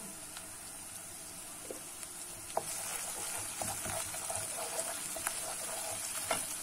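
Fried onion with tomato and pepper paste sizzling in oil in a frying pan. From about two and a half seconds in, a wooden spatula stirs it and knocks against the pan several times.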